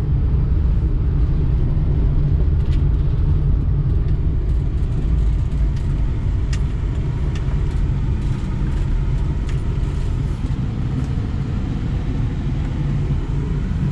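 Steady low rumble of a running vehicle, with a few faint ticks.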